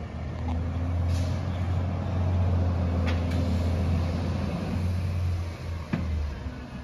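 Heavy truck engine running with a steady low drone, with a few sharp clicks, the sharpest about six seconds in.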